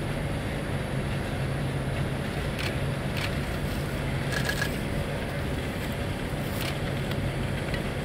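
Steady low rumble of distant traffic, with a few sharp clicks and a short call of four quick high notes about four and a half seconds in.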